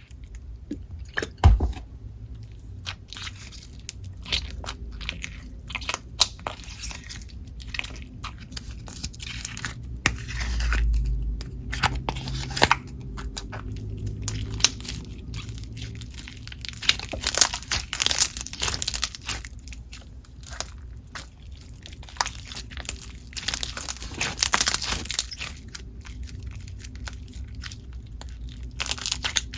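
Hands squishing and stretching Play-Doh Green Krackle, a sticky clear slime with small beads mixed in, giving dense irregular crunching and clicking crackles.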